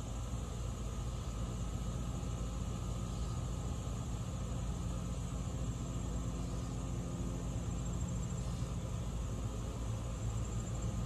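Steady low background rumble with a constant high-pitched buzz above it; no distinct event stands out.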